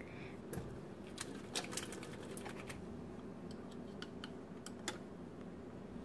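Quiet, irregular small clicks and taps of a plastic measuring spoon and kitchen utensils being handled.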